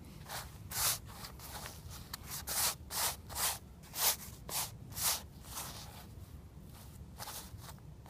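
Dry grass tinder rustling as it is rubbed and rolled between the hands into a bundle: about a dozen short rustling strokes, roughly two a second, then a few fainter ones near the end.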